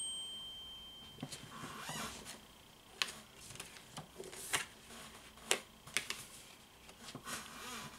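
Tarot cards being handled and laid down on a cloth-covered table: a few separate soft taps and slides. A short high ring at the very start fades over about a second.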